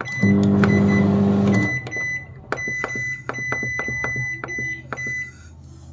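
Microwave oven humming for about a second and a half, then a quick run of about a dozen clicks with a high electronic beep tone as its control dial is turned to set the time.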